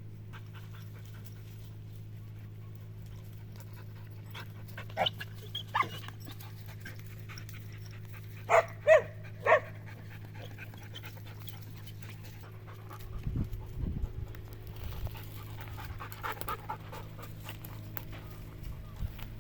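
Dogs panting and barking: a couple of short barks about five seconds in, a quick run of three loud barks around nine seconds, and a few more short barks near sixteen seconds, over a steady low hum.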